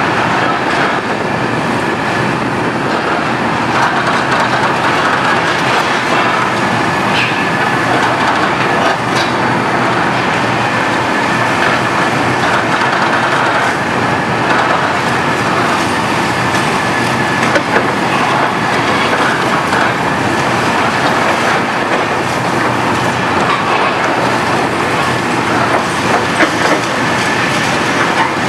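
Liebherr R974B HD-EW high-reach demolition excavator working at the top of a concrete building: a loud, steady run of engine and hydraulic noise, with scattered cracks and clatter as concrete is broken and debris falls.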